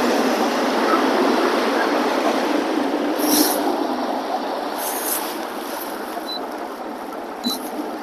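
Steady rushing wind and water noise of a boat running across a lake, fading slowly, with a few short high hisses of spray.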